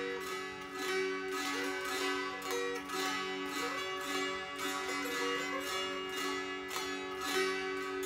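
Six-string Pennsylvania-Dutch scheitholt, tuned DGd DGd, strummed in a steady rhythm of about two strokes a second. A melody on the fretted strings moves over continuously ringing drone strings, with small pitch slides between some notes.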